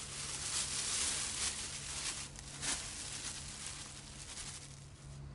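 Glutinous rice flour poured from a plastic bag into a stainless steel bowl: the bag crinkles and the powder hisses as it slides out, loudest in the first couple of seconds and then tapering off.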